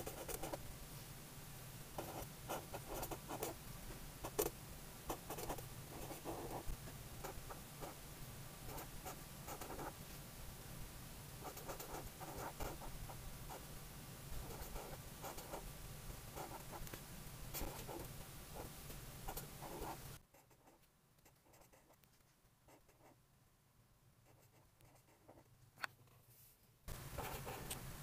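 Felt-tip marker nib scratching across grid paper in quick short strokes as letters are written by hand. About two-thirds of the way through the strokes stop for several seconds, with a single tick in the pause, before writing starts again near the end.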